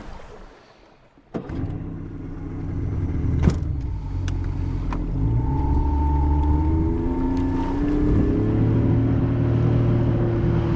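Boat's outboard motor starting up suddenly after about a second of quiet, then running and speeding up, its pitch rising midway. A steady high tone sounds for a couple of seconds in the middle, and there is a single sharp click a few seconds in.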